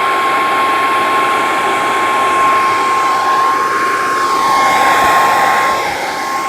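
Electric hot-air blower running steadily, a rush of air with a constant high whine, warming a garden tractor's plastic front-wheel hub cap to loosen it for removal. The tone of the air rush shifts midway.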